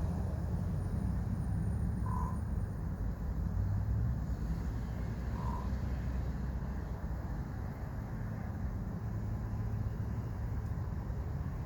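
Common raven giving two short croaking calls about three seconds apart, over a steady low rumble.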